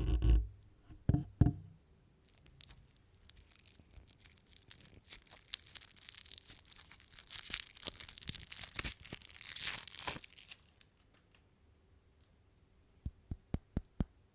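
A candy's plastic wrapper torn open and crinkled: dense crackling for about eight seconds, with two heavy thumps just before it and a quick run of about five light taps near the end.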